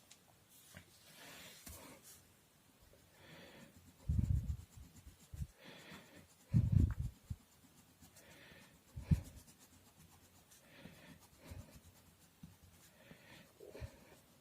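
Faint, irregular scratching strokes of colour being worked onto paper. Three louder, deep puffs or bumps stand out, about four, six and a half, and nine seconds in.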